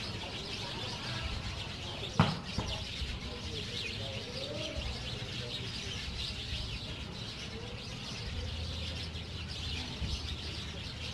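Many small birds chirping steadily all around, with one sharp knock about two seconds in.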